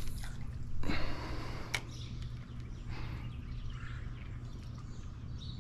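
Fishing rod and spinning reel being handled after a dock-shooting cast: a click at the start, a short swish about a second in and another click, over a steady low hum.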